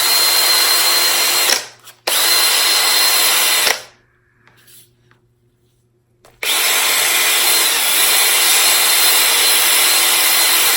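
Electric drill running in three spells, spinning the wooden knob of a Stanley #3 hand plane on a bolt against sandpaper. It gives a steady hiss with a high tone, with a short stop about a second and a half in and a longer pause of a couple of seconds in the middle.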